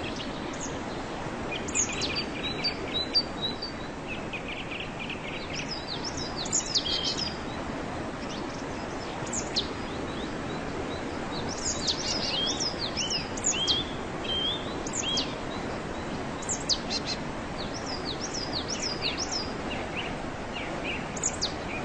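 Waterfall running with a steady rush, while small birds chirp and call over it in short sweeping notes that come in clusters.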